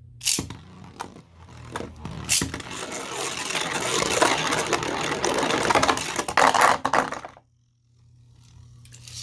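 A few sharp plastic clicks, then Beyblade spinning tops rattling and clashing in a plastic stadium: a loud, dense run of rapid clicks and grinding for about five seconds that cuts off suddenly.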